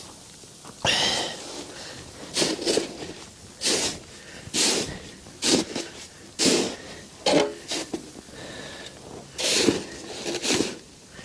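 Snow shovel scraping across a walkway in a string of short strokes, about one a second at an uneven pace.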